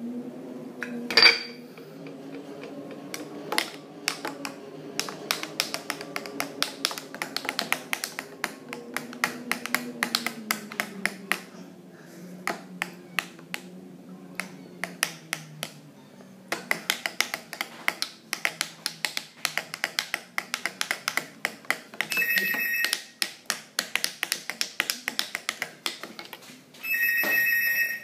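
Metal spoon stirring in a glass beaker of soda, clinking against the glass in quick, even ticks about four or five a second, with a sharp knock about a second in. Twice near the end a short high steady tone sounds for about a second.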